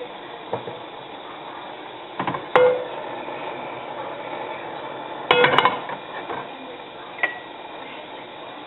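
Kitchen utensils and dishes clinking a few times during cooking prep, each clink ringing briefly, over a steady faint hiss.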